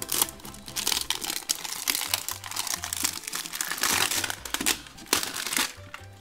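A printed wrapper being torn and crumpled off a large plastic toy egg: a continuous run of crackling, tearing noises, over soft background music.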